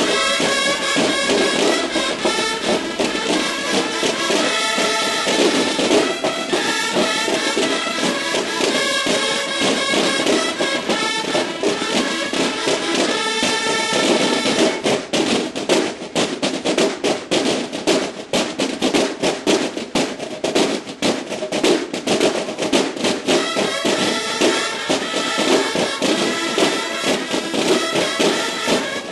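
Banda de guerra (Mexican bugle and drum corps) playing: bugles sound sustained calls over drum rhythms, then about halfway through the bugles fall back and the drums carry a rapid drum-only passage, with the bugles coming back in near the end.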